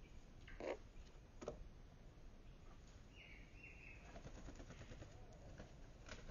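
Near silence: faint outdoor ambience, broken by two short knocks in the first second and a half and a brief high bird note around the middle.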